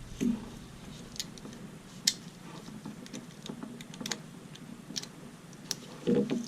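Small sharp clicks and ticks from handling a Victorinox Sportsman Swiss Army knife as its large blade is opened, scattered and irregular, the loudest click about two seconds in.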